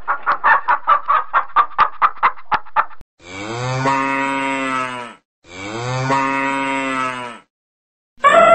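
Quail chicks peeping rapidly, about five short peeps a second, for the first three seconds. Then a cow moos twice, each a long, low call of about two seconds falling slightly in pitch at the end.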